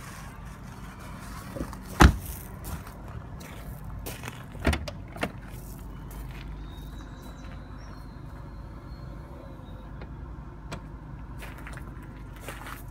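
A car door shuts with one sharp knock about two seconds in, followed a couple of seconds later by a softer thump and a small click as the tailgate is worked, over a steady low rumble and the rustle of the handheld phone.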